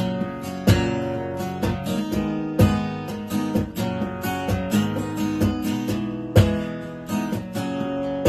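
Solo acoustic guitar strumming and picking chords, with strong accented strokes every second or so and no voice.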